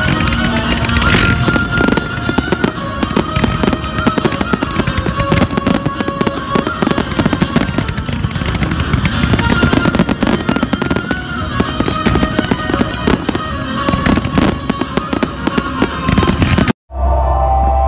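Fireworks display: a dense run of bangs and crackling bursts, with music playing under it. Near the end it cuts off abruptly and music alone follows.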